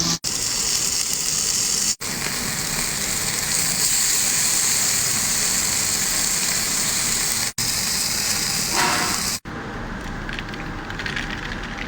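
Food frying in a hot wok: a steady, loud sizzling hiss, broken by abrupt cuts several times and a little quieter after the last cut.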